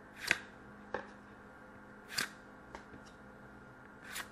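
Hockey trading cards being slid and flipped one by one off a stack in the hand: short papery swishes and flicks, the louder ones about every two seconds, with lighter ticks between. A faint steady hum runs underneath.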